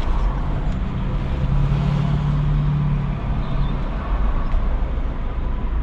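Steady low rumble of idling vehicles, heard from inside a car. A hum stands out over it and fades about three seconds in.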